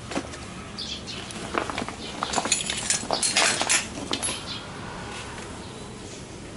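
Aqualung Axiom scuba BCD being handled: rustling of its nylon shell with sharp clicks of its plastic buckles and fittings. The clicks and rustling bunch together for about three seconds, then it goes quieter.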